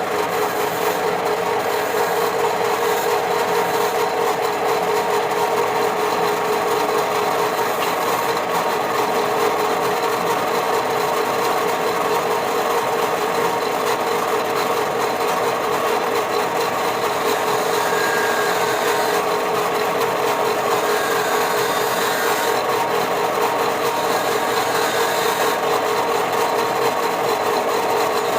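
A power tool running continuously, with a constant motor hum over a steady spread of noise.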